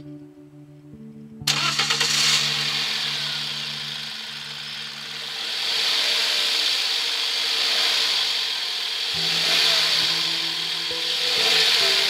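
Toyota Corolla engine starting on its newly fitted battery: a sudden start about a second and a half in, then running with a dense hiss that swells and eases every couple of seconds. Background music plays underneath.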